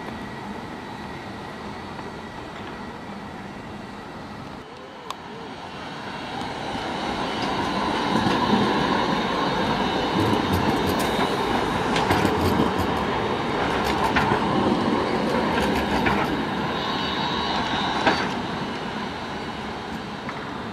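A tram passing close by on street track. The running noise swells as it approaches, holds loud as it passes with several sharp clacks from the wheels on the rails, then fades as it pulls away. A brief high wheel squeal comes near the loudest clack, toward the end.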